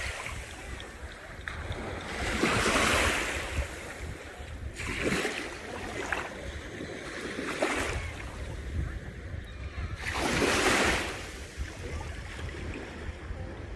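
Small waves breaking and washing up the beach in surges every two to three seconds, with wind rumbling on the microphone.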